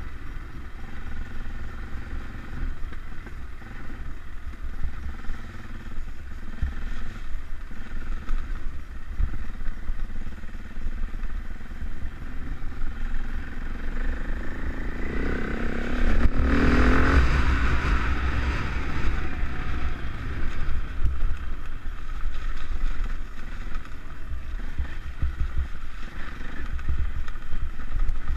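Trail bike engine running as the bike rides along, with wind buffeting the microphone. About fifteen seconds in, the engine revs up in a rising pitch, then settles back to a steady run.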